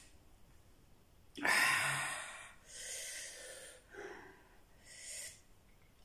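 A person eating, breathing sharply through the mouth: a loud breathy gasp about a second and a half in, then three shorter hissing breaths, the air sucked in and puffed out against the heat of a spicy chili seafood dipping sauce.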